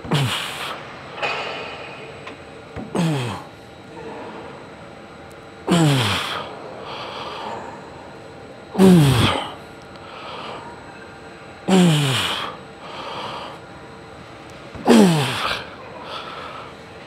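A man's forceful grunting exhales, six in all at about one every three seconds, each falling in pitch, with quick breaths drawn in between: the strain of the hard closing reps of a set on the adductor machine at the full weight stack.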